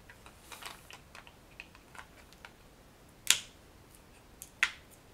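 Small plastic clicks and taps of dice tower kit parts being handled and fitted together, then two loud, sharp clicks about three and a half seconds and four and a half seconds in as the dice ramps are pushed into their slots in the front piece.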